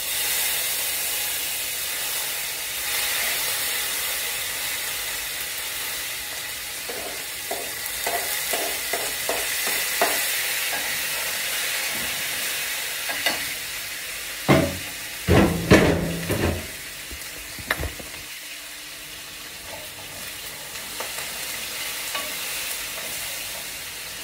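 Food frying in hot oil in a pot on the stove: a steady sizzling hiss. Light metal utensil clinks come in the middle, then a few loud clattering knocks against the pot, and the sizzle is quieter in the last few seconds.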